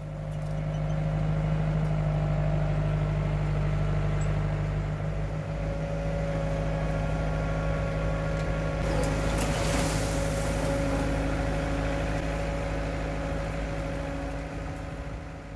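Diesel engine of a combine harvester rebuilt as a tracked dump carrier, running steadily, with a brief rough rustling noise about nine seconds in.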